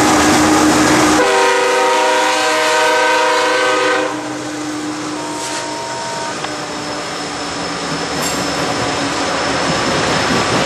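BNSF diesel locomotives passing with their engines running loud. A little over a second in, the air horn sounds one blast of several notes together, lasting about three seconds. After the horn, the coal hopper cars roll by with a lower, steady rumble of wheels on rail.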